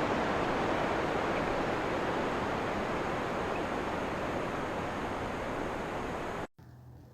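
A steady, even hiss that starts abruptly and cuts off suddenly about six and a half seconds in.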